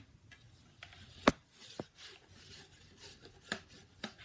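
Hands handling a small plastic object: rubbing and fumbling with a few sharp clicks, the loudest about a second in.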